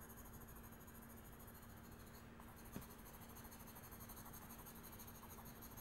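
Faint pencil strokes on drawing paper as tone is layered up to darken a shadow, with a low steady hum beneath.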